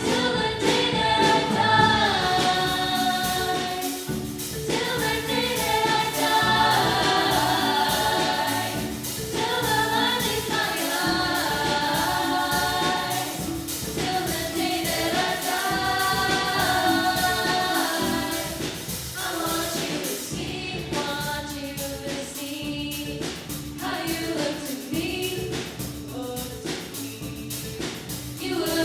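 A choir singing, several voice parts together, with the sung lines rising and falling.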